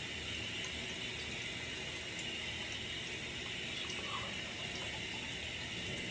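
Steady rush of running water from a tap.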